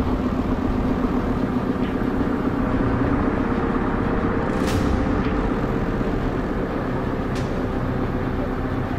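JCB telescopic handler's diesel engine running steadily under load as its boom lifts a steel footbridge out of the water, with a brief sharp click about halfway through.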